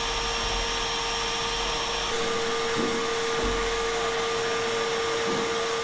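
Sandblasting cabinet running on the suspension pivot shafts: a steady rush of air hiss over a steady hum, which shifts slightly in tone about two seconds in.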